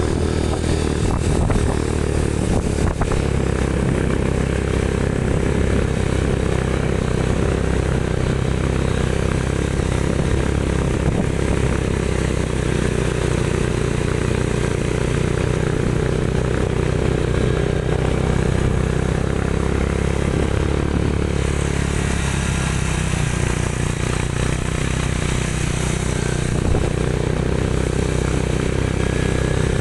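Motorcycle engine running steadily while riding, heard from on the bike, with a dense low rumble and rushing noise, a little brighter and hissier about two-thirds of the way through.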